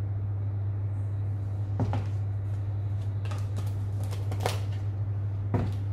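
Steady low hum with a handful of light clicks and knocks from a plastic salt tub and its scoop being handled and set down on a steel worktop.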